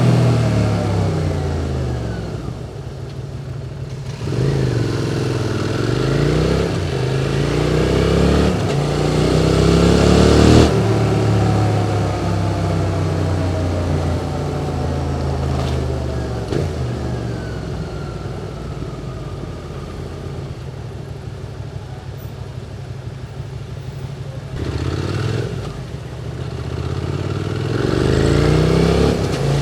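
QJ Motor SVT650X motorcycle engine through an Arrow Racetech slip-on exhaust, accelerating through the gears: the pitch climbs and drops back at each of several upshifts in the first ten seconds. It then eases off, falling in pitch as the bike slows, and pulls hard again near the end.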